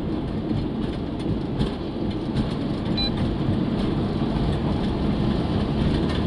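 Steady road noise inside a moving car's cabin: a low rumble of tyres and engine. A short, faint beep sounds about three seconds in.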